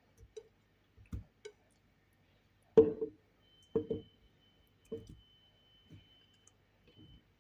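Pieces of fruit dropped into a blender jar: a run of about eight separate knocks and thuds at irregular intervals, the loudest a little under three seconds in.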